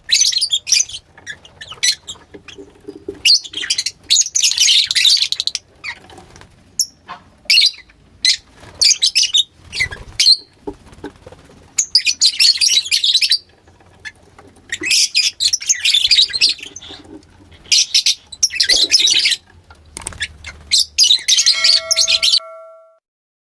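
Lovebirds chattering in repeated bouts of high-pitched chirps and squeaks, each burst lasting one to two seconds with short gaps between.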